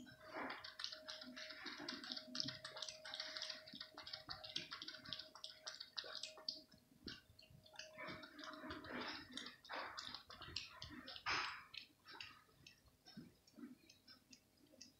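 Cat lapping milk: a fast run of soft, wet clicks from the tongue, which thin out and stop near the end.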